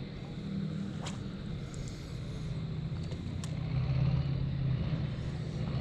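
Steady low engine hum, with a couple of faint clicks.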